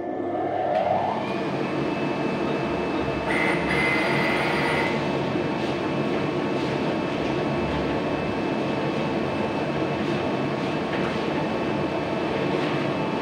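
Loud, steady mechanical rumble of a heavy vehicle or machine running close by, with several steady whining tones over it. A short rising whine comes about half a second in, and a higher tone about four seconds in.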